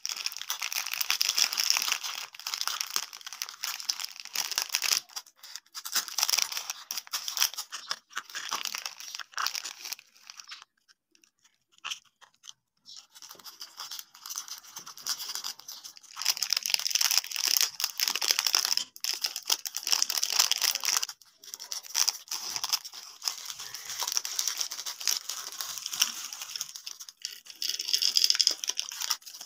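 Plastic sweet and biscuit wrappers crinkling and being torn open by hand, in bursts of rustling with a short pause about eleven seconds in.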